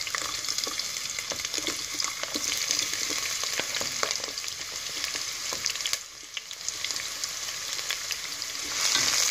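Sliced onions sizzling and crackling in hot oil in a pot as they are tipped in, with a metal spoon pushing them off a plate. The sizzle dips briefly about six seconds in and grows louder near the end.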